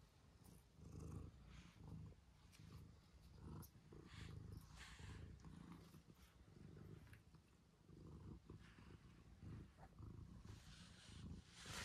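Tabby-and-white domestic cat purring: a faint, low rhythmic rumble that comes in repeated pulses.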